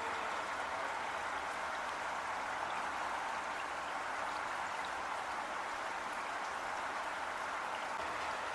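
Heavy rain falling steadily, a dense, even hiss with faint scattered drop ticks.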